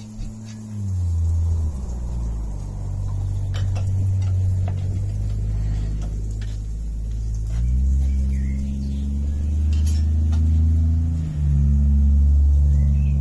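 An engine running nearby, a low hum that shifts up and down in pitch several times, loudest near the end, with a few light clicks over it.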